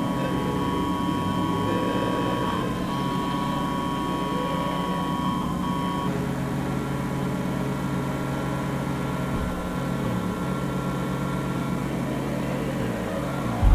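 A steady low droning rumble with held high tones above it that stop about six seconds in. Right at the end a much louder deep rumble starts.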